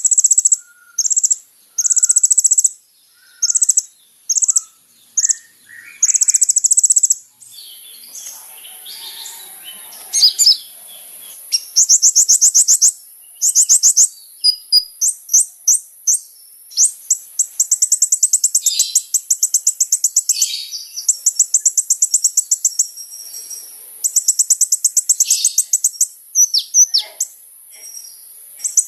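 Kolibri ninja (brown-throated sunbird) singing vigorously: very high, rapid trills and chirps in short bursts, some phrases run on for several seconds.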